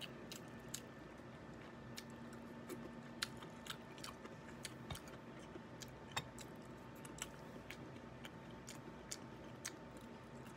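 Close-up eating sounds of crab being picked apart by hand and chewed: irregular small clicks and cracks of shell, with wet mouth sounds.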